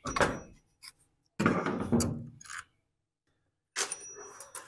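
Chainsaw guide bar and chain being worked off the powerhead by hand: three short bouts of knocking and scraping.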